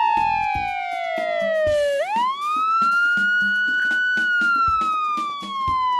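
Cartoon siren wailing over background music with a steady beat: one whistle-like tone that slides slowly down, swoops back up about two seconds in, holds for a moment, then slides down again.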